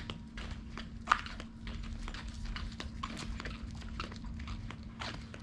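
Quick, irregular clicks and taps of a small animal's paws and claws on a hard floor, with one sharper tap about a second in, over a steady low hum.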